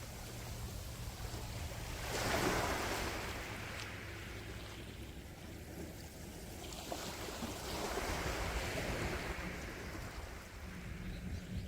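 Calm sea waves washing onto the shore: one wave surges about two seconds in and another swells through the second half, over a steady low rumble.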